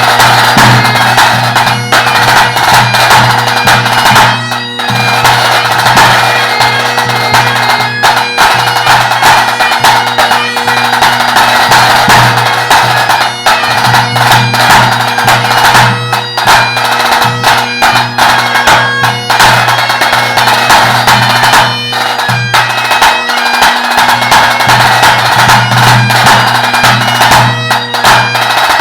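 Great Highland bagpipe playing a tune over its steady drones, with a tenor drum beating along in time.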